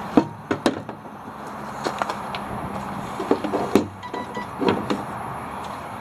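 Plastic jerry cans knocking and clunking as they are set into the metal jerry can holders on a Jeep's rear tire carrier, a string of separate knocks over steady background noise.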